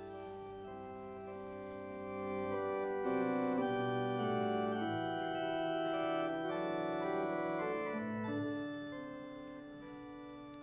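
Organ playing the slow introduction to a hymn, in held chords that change every second or so. It swells about two and a half seconds in and softens again near the end.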